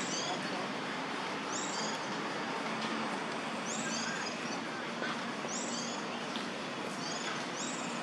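Short, high-pitched animal calls, each a quick run of falling notes, repeating every second or two over a steady hiss of background noise.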